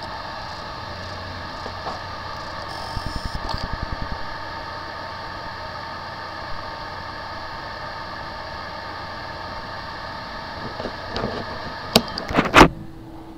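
Recorded sound of a Seagate Barracuda 3.5-inch SATA hard drive with a bad motor IC, the fault that leaves the drive overheating or not spinning: a steady electrical hum with a quick run of low pulses about three seconds in and a few sharp clicks near the end.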